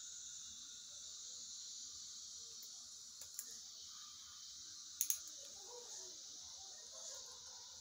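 Orthodontic hand instruments clicking as they work on lower braces: a few short, sharp clicks, the loudest a quick double click about five seconds in, over a steady high hiss.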